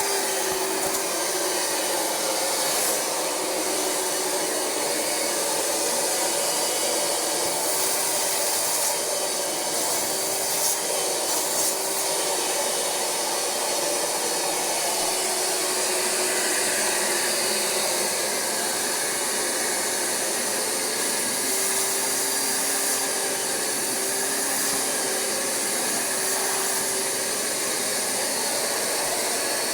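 Rug Doctor X-3 carpet cleaner running steadily, its suction motor drawing through the upholstery hand tool, with a hum that wavers slightly in pitch.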